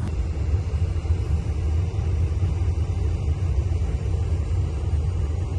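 Residential air handler's blower running with the system in cooling, a steady low rumble of moving air. The system is cooling normally with the repaired coil holding.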